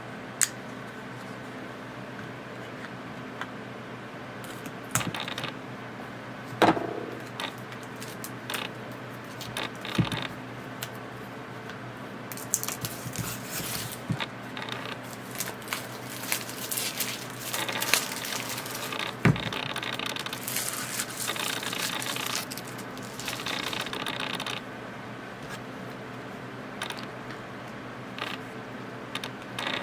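Hands working a small cardboard product box and its packaging open: scattered taps, clicks and knocks, with a long stretch of scraping and rustling in the middle, over a steady low hum.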